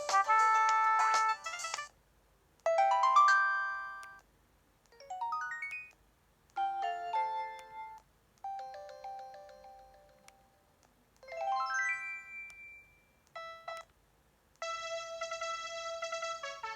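A string of preloaded ringtones on a ZTE S2X phone, played one after another. There are about seven short electronic melodies, several of them quick rising runs of notes, each followed by a brief silence. A busier tune of fast repeated notes starts near the end.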